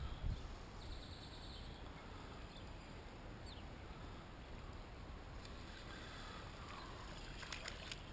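Outdoor ambience by a creek: a steady low rumble like wind on the microphone, with a few short bird chirps and a brief high trill about a second in.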